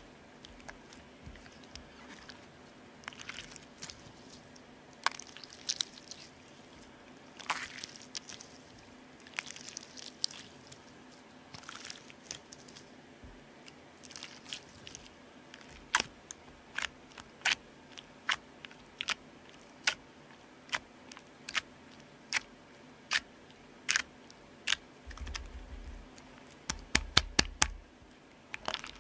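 Homemade borax slime being squeezed in the hands and pressed onto a glass tabletop, close to the microphone. Soft sticky squelches come first, then sharp wet clicks and pops about once a second, crowding together in a quick burst near the end.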